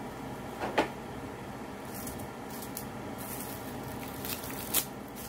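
Plastic packaging of a new HEPA vacuum filter crinkling and crackling as it is cut open with a folding knife, with sharp crackles about a second in and again near the end, over a steady low hum.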